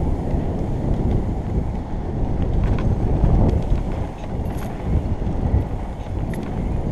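Wind buffeting a helmet camera's microphone over the rumble of mountain bike tyres on a dirt trail at speed, with a few short knocks and rattles from the bike over bumps.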